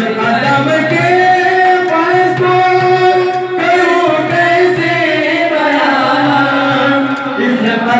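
Qawwali sung by male voices into microphones, long held and bending notes, over frame drums (dafs).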